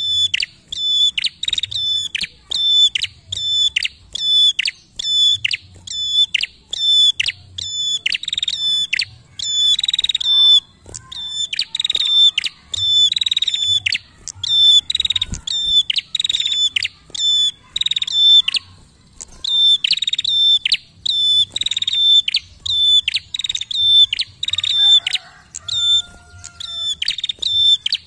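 Caged prenjak calling without pause: a loud, sharp, repeated note about two to three times a second, running into denser rapid runs now and then.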